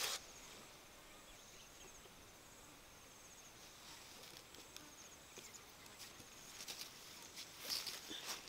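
Faint, high-pitched insect trilling over quiet rural ambience. Near the end comes rustling and footsteps in grass and dry leaves.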